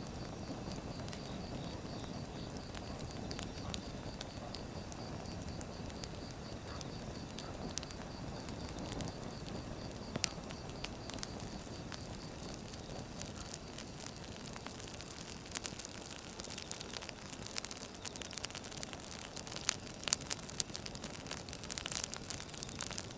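Firewood burning: a steady low rush of flames with scattered sharp crackles and pops, the pops growing more frequent about halfway through.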